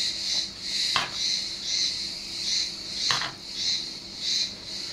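A metal spoon scooping moist rice filling into a hollowed zucchini, with two light knocks of the spoon. Under it runs a steady, high-pitched insect chirping that pulses about once every two-thirds of a second.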